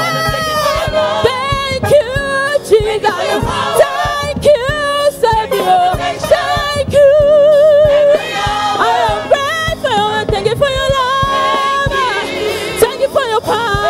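Gospel choir singing, led by a woman soloist on a microphone, voices holding long notes with a wavering vibrato.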